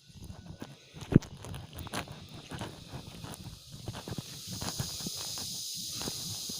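Irregular footsteps and knocks with rustling, and one sharp, loud knock about a second in. A steady high hiss builds up from about four and a half seconds in.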